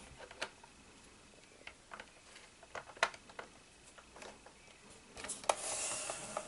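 Light, scattered clicks and taps of plastic parts as sprockets are handled and fitted on a clear plastic model V8 engine kit, with a brief rubbing rustle near the end as the model is handled.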